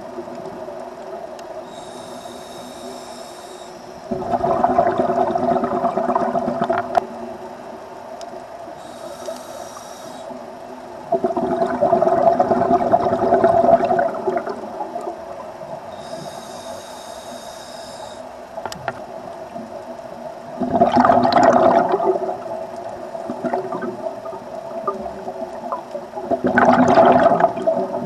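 A scuba diver breathing through a regulator underwater: a short hiss on each inhale, then a louder bubbling rumble as exhaled air leaves the regulator, about four breaths in all, over a steady hum.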